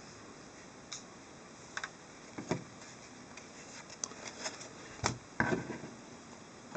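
Hockey trading cards being handled: a handful of light, scattered clicks and taps over quiet room tone.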